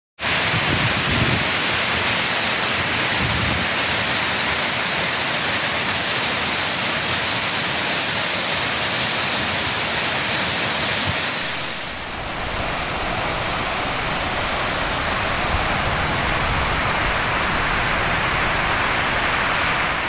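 Water rushing over a dam's overflow wall in a wide cascade, a steady loud wash of noise. A little past halfway it drops somewhat in level and loses some of its high hiss.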